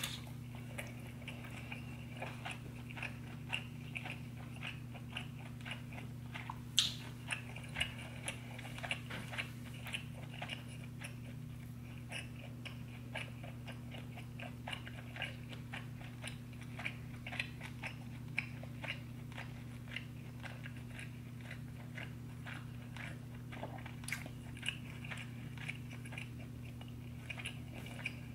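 Close-miked eating of seafood boil: wet, irregular chewing clicks and bites, over a steady low hum.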